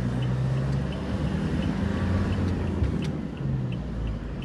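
A new Toyota car's engine running and road noise, heard from inside the cabin while driving. A faint high tick repeats about three times a second.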